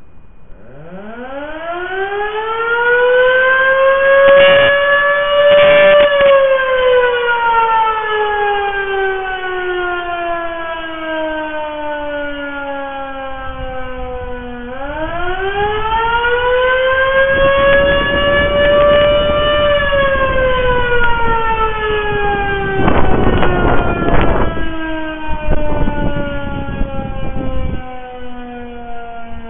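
Federal Signal Model 5 electromechanical warning siren sounding two blasts. It winds up from silence to a high pitch over about six seconds and winds slowly down. Halfway through it winds up again for a second blast and falls away once more. Bursts of rushing noise come and go during the second blast.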